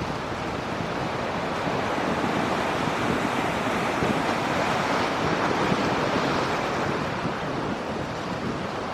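Jet engine noise from an Airbus A220-300's Pratt & Whitney PW1500G turbofans: a steady rushing roar that swells slightly around the middle.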